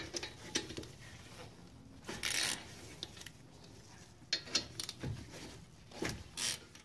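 Scattered metal clinks and a short scrape about two seconds in, from a hand tool on the brake caliper's two 14 mm bolts as they are taken out.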